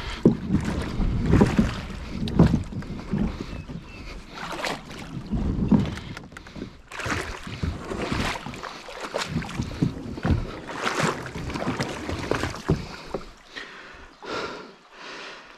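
Steps sloshing through shallow water over stones while a kayak is walked along, its hull bumping and scraping on the rocky bottom, in an irregular run of splashes and knocks.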